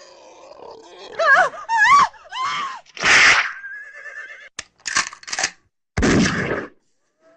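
A rapid montage of cinematic sound effects: wavering cries that glide up and down, a loud noisy burst about three seconds in, a short steady tone, sharp clicks, and a deep heavy burst about six seconds in.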